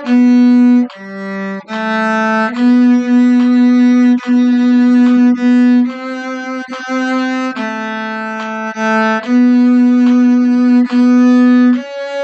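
Cello bowed in a slow melody of held notes, each lasting about half a second to a second and a half, mostly in the instrument's middle register with a few higher notes.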